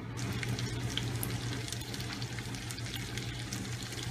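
Lamb patties sizzling in butter in a frying pan: a steady hiss with many small crackles and pops, over a low steady hum.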